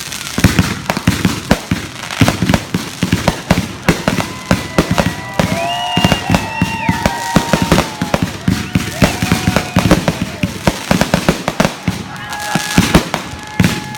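Fireworks going off in a rapid barrage of sharp cracks and bangs. Whistling tones sound over the bangs through the middle and again near the end.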